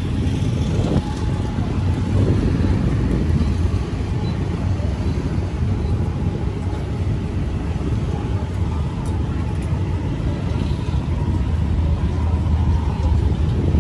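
Steady street traffic noise: motor vehicle engines running and passing, with no single event standing out.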